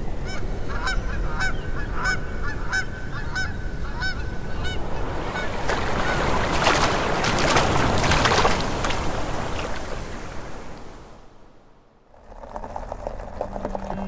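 Geese honking, about three calls a second for the first five seconds over a steady rush of river water. Then loud splashing in shallow river water, which fades out; music begins near the end.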